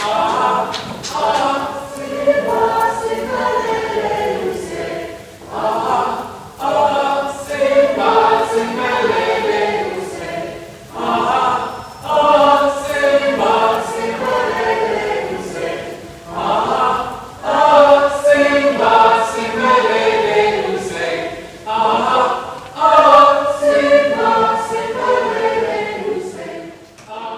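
Choir singing in held, sustained phrases lasting a few seconds each, with short breaks between them.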